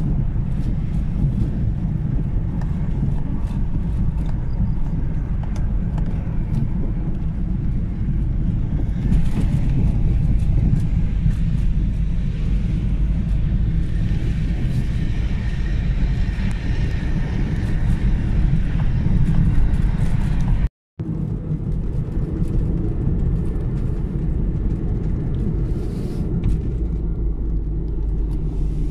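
Steady low rumble of a car driving on a paved road, heard from inside the cabin, with road and wind noise. The sound cuts out abruptly for a moment about two-thirds of the way through, then resumes.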